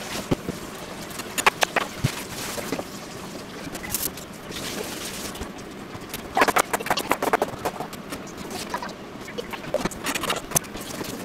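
Kitchen knife chopping leafy greens on a plastic cutting board: short bursts of quick knocks, with the longest, fastest run about six seconds in.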